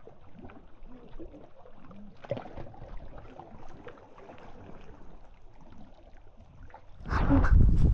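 Small waves lapping against the lakeshore, with light wind. About seven seconds in, a sudden loud rumbling rush of noise hits the microphone for nearly a second.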